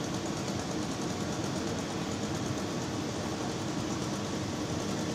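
Steady rumble of heavy diesel engines idling, an even mechanical drone that neither rises nor falls.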